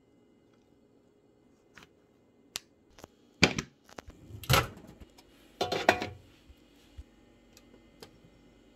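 Scattered clicks and knocks of kitchen handling as a block of cheddar is cut with a table knife and moved to a microwave oven. The loudest knocks come about three and a half, four and a half and six seconds in, with a few faint ticks after them.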